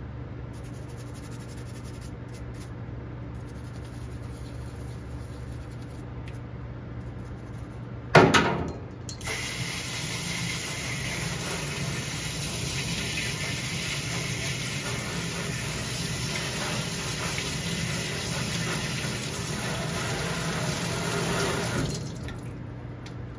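A sharp knock about eight seconds in, then a faucet running water into a stainless steel sink for about thirteen seconds, splashing over hands and a part held under the stream, shut off suddenly near the end.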